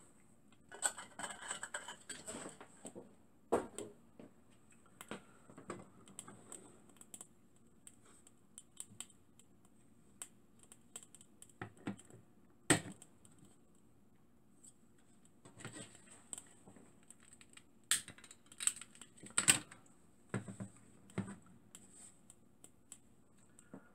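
Irregular clicks, taps and knocks from hands handling a small model steam engine on its wooden base and other items on a workbench, with a sharp knock about halfway through and two more about three quarters of the way in.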